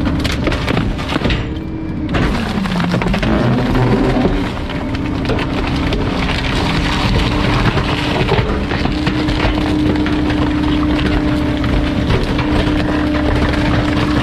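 Garbage truck's packer crushing bulky waste: wood and other items cracking and breaking over a steady mechanical whine. The whine dips in pitch about two seconds in and climbs back about two seconds later, as if under load.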